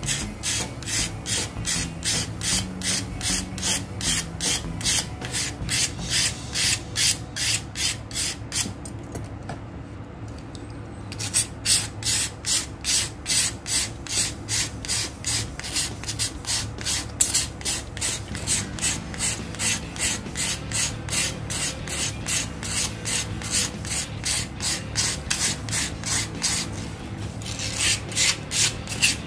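Wet sandpaper on a stick rasping along a steel pet-scissor blade in short one-way strokes, about two a second, sharpening the cutting edge. The strokes stop for about two seconds roughly a third of the way in, then carry on.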